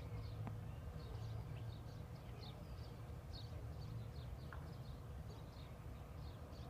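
Small birds chirping, many short quick falling calls repeated, over a steady low rumble.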